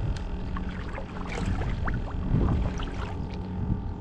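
Water splashing and dripping around a kayak, small splashes and short gurgling drips scattered over a steady low rumble of wind on the microphone.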